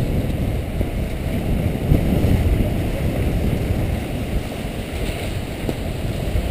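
Steady low wind rumble buffeting an action camera's microphone while skiing downhill, mixed with skis sliding over packed snow.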